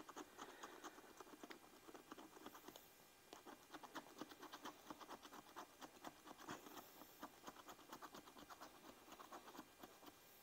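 A scratch-off lottery ticket being scratched: faint, quick, irregular scraping strokes as the coating is rubbed off.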